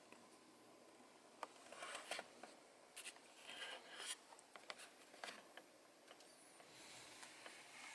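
Near silence: room tone with a few faint, short clicks and rustles scattered through it.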